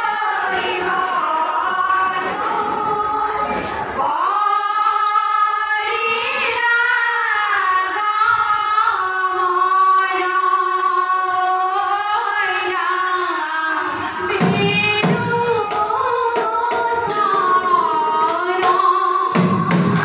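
Women's dihanaam group singing an Assamese devotional chant together, with percussion beating in about fourteen seconds in and again near the end.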